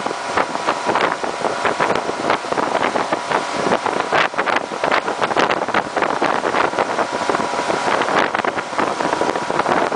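Wind buffeting the microphone on a speeding motorboat, in irregular gusts over the rushing of the churned-up wake water, with the boat's engine running steadily underneath.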